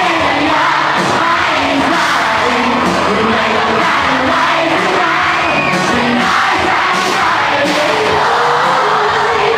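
Live rock band playing: electric guitar, bass guitar and drum kit through stage amplifiers, with a singer on a microphone over the top.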